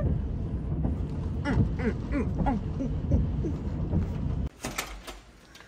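A woman giggling in a quick run of short, falling hoots over a steady low rumble inside the truck cab. About four and a half seconds in, the rumble cuts off abruptly and it goes much quieter.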